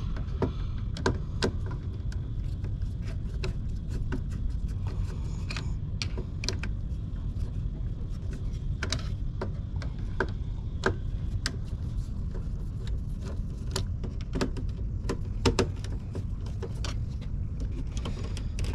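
Screwdriver and fingers working inside a residential circuit breaker panel: scattered metallic clicks, ticks and scrapes as a breaker's wire terminal screw is loosened and its wires handled, over a steady low rumble.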